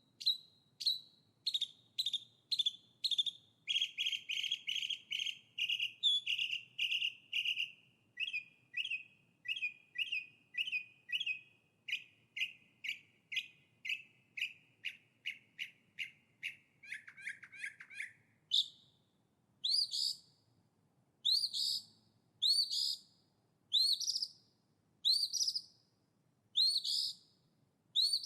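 A songbird calling in long, even series of short high chirps, about two a second, the notes stepping lower in pitch partway through and breaking into a brief fast trill. After that the calls slow to roughly one every second and a half, with higher, upward-sweeping notes.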